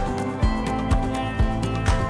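Background music with a steady beat, about two beats a second, over sustained melodic notes.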